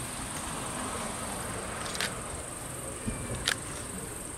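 Night insects chirping in a steady high-pitched chorus, with a few faint sharp clicks and low distant thuds near the end.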